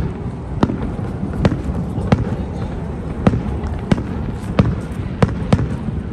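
Aerial fireworks shells going off in quick succession: about nine sharp bangs, roughly one every two-thirds of a second, over a steady low rumble.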